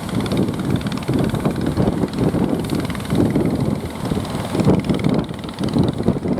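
Wind buffeting the microphone as an uneven low rumble, over the noise of heavy surf.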